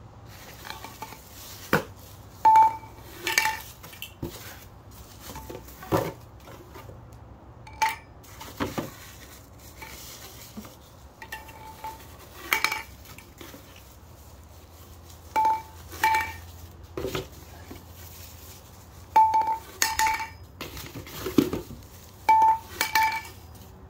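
Pole sections of a fruit picker clinking and knocking against each other as they are handled and fitted together. Sharp, briefly ringing knocks come every few seconds, often in pairs.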